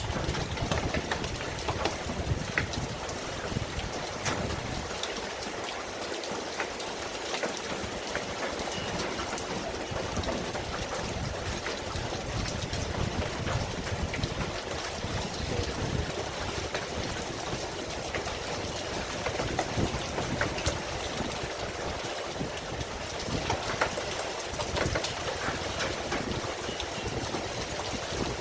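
Steady rain: a dense, even hiss of falling water with many sharp individual drop hits scattered throughout.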